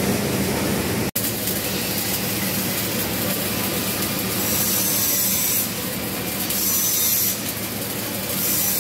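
Flux-cored arc welding arc crackling and sizzling steadily, its high hiss coming and going in spells, after a sudden brief dropout about a second in.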